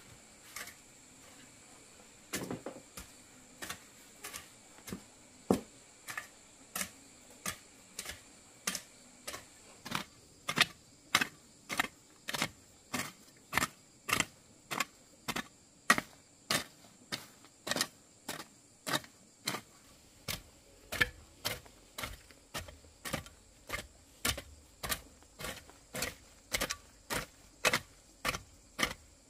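Steady rhythmic knocking: short, sharp strikes at about three every two seconds, beginning about two seconds in, with a faint steady high whine beneath.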